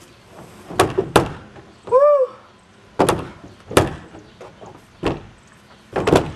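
Plastic storage shed doors being slammed and shoved shut: a string of about six hollow bangs and thuds spread over several seconds, with one short pitched sound about two seconds in.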